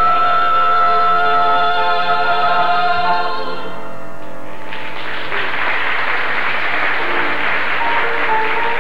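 A four-voice gospel group holding a final sung chord, which stops about three and a half seconds in. About a second later a congregation starts applauding, and keeps on to the end.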